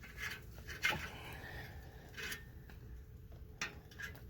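Small sharp clicks and light scraping of a hand cutting tool working at the tail of a stainless steel locking tie on a car's exhaust, with the strongest click about a second in.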